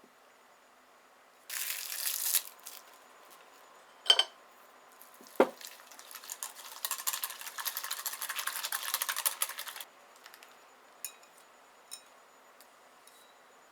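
A whisk stirring custard in a heatproof bowl: first a short crinkle of plastic wrap, then two knocks against the bowl, then about four seconds of brisk whisking, and a few light taps near the end.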